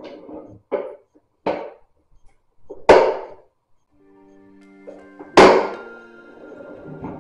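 Small items knocking against each other and the wood of an open vanity drawer as it is rummaged through: a few separate sharp knocks, the loudest about three and five seconds in. Soft instrumental background music comes in about four seconds in.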